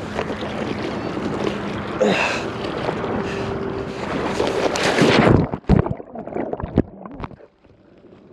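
Wind on the microphone over choppy water, swelling about five seconds in to a loud rush of splashing that breaks off abruptly into scattered knocks and sloshing: a wading angler falling into the water while playing a fish.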